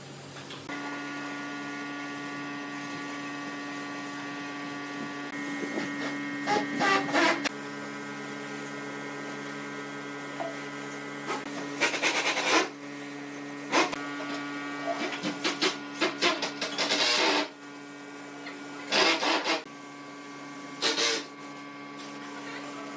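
Air spray gun hissing in short bursts of about a second, six or so times, as finish is sprayed onto bare pine. Underneath runs a steady mechanical hum of several held tones.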